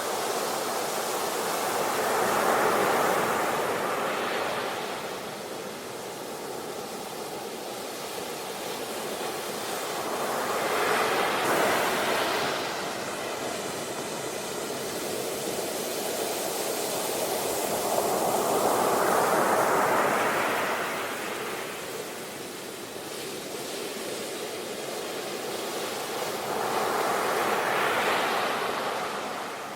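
Sea waves breaking and washing in, four surges in turn, one about every eight seconds, each building up and then falling away.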